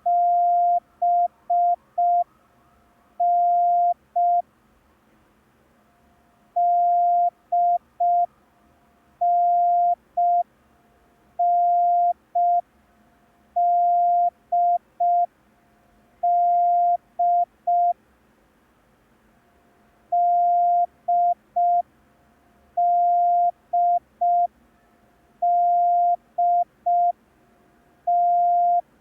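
Morse code practice tone, a single steady pitch keyed into dashes and dots. It sends letters of the B, D, N set (dah-dit-dit-dit, dah-dit-dit, dah-dit), with short pauses between the letters and longer gaps now and then.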